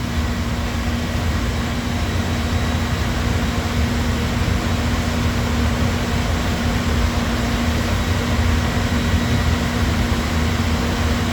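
Steady mechanical hum and whir of powered-up shop equipment, with a low rumble and a constant droning tone.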